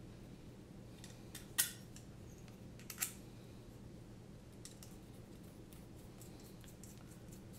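Small clicks and taps of carbon-fibre frame parts, screws and a standoff being handled and fitted together by hand, with two sharper clicks about a second and a half and three seconds in and fainter ticks later, over a low steady hum.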